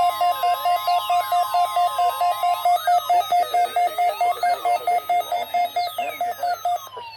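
Weather radio receivers sounding their alerts during the NOAA Weather Radio weekly test: a rapid beeping of about five beeps a second under a tone that slides up and down like a siren. The steady NOAA warning alarm tone stops about two and a half seconds in, and the beeping cuts off just before the end.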